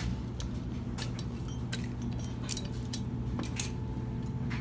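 Light metallic clicks and clinks, irregular and a few a second, over a steady low hum.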